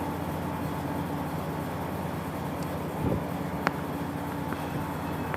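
Steady machine hum, with a dull thump about three seconds in and a sharp click about half a second later.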